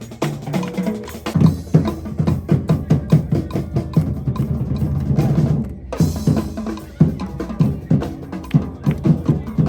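Drummers playing a fast, driving rhythm on bass and snare drums. The strokes thicken into a dense build-up, cut off sharply about six seconds in, then the beat starts again.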